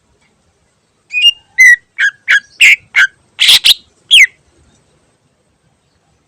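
Cucak ijo (greater green leafbird) singing: a quick run of about nine short, sharp whistled notes over about three seconds, several of them sweeping down in pitch.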